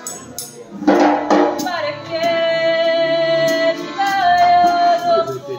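Live folk gavotte tune on chromatic accordion with drum-kit percussion, a woman's voice holding two long melody notes, the second a step higher. Sharp drum hits about a second in, with light high cymbal or tambourine ticks running on.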